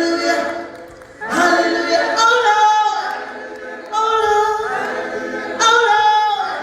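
Choir singing a cappella in harmony: held chords that break off and start fresh about four times.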